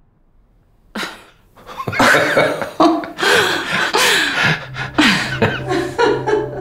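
Elderly women laughing in breathy bursts, starting about a second in after a moment of quiet. A low, steady music note comes in about two-thirds of the way through.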